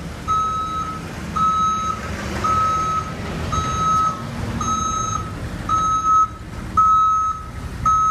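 Tow truck's reversing alarm beeping steadily about once a second, over the low running of the truck's engine.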